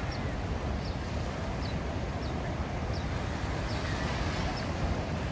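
Steady noise of ocean surf breaking, with a faint high chirp repeating about every two-thirds of a second.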